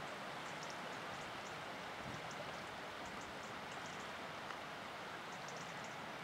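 Steady outdoor hiss of wind over choppy lake water, with faint clusters of short, high-pitched chirps scattered through it.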